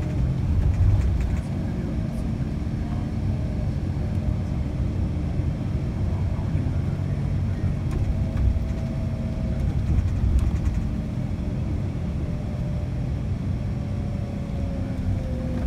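Car road noise heard from inside the cabin: a steady low rumble of tyres and engine while driving along a street.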